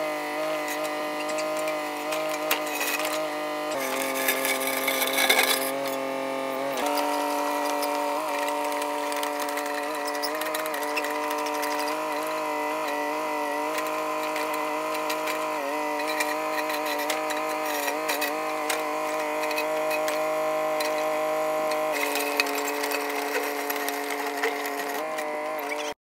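Mini excavator's engine and hydraulics running steadily while the bucket digs a trench in turf, with scattered light clanks and scrapes. The pitch drops about four seconds in and comes back up about three seconds later.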